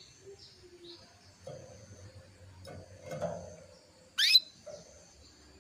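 Female domestic canary calling: a few faint short chirps early, then one loud, sharp, quickly rising call note about four seconds in. This is the hen's mating call, which is meant to bring males into song.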